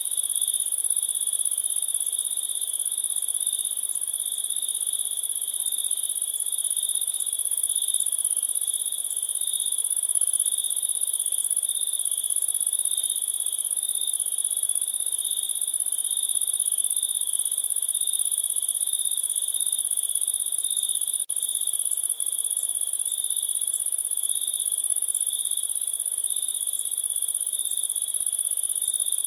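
Crickets chirping in a continuous chorus: two steady high trills, one high and one much higher, with a momentary dropout about two-thirds of the way through.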